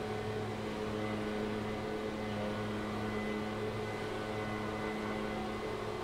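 Lawn mower engine running steadily, a constant hum at one pitch.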